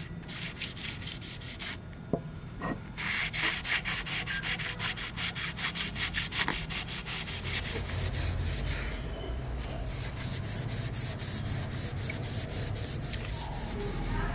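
Sandpaper rubbed by hand along a wooden knife handle in quick, even back-and-forth strokes, with two short pauses, about two seconds and about nine seconds in.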